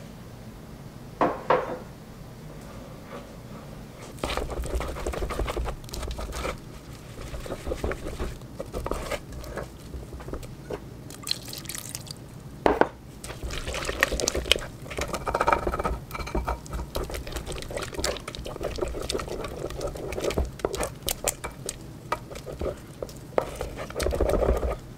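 Warm water poured from a glass measuring cup into a stoneware crock of sourdough starter and stirred into the flour with a wooden spoon: wet stirring and scraping, with a few sharp knocks against the crock.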